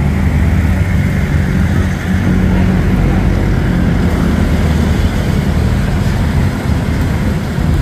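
Motor scooter engine running steadily, a low even hum.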